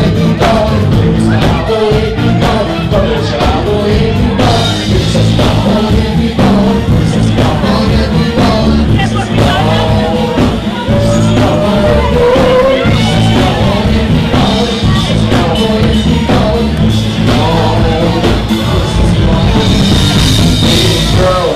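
Loud dance music: a singer over a steady beat.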